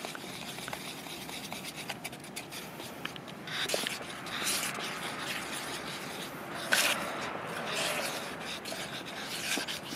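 A stick stirring thick epoxy resin in a plastic bucket, scraping and rubbing against the bucket's walls as green colorant is mixed in, with a few louder scrapes near the middle.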